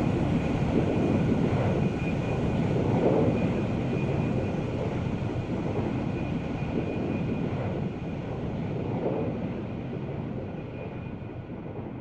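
Airplane in flight, its engine rumble with a thin steady whine growing steadily quieter and duller as it flies away.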